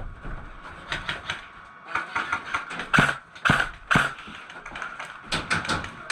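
Airsoft guns firing single shots as sharp, irregular cracks. The loudest three come about half a second apart near the middle.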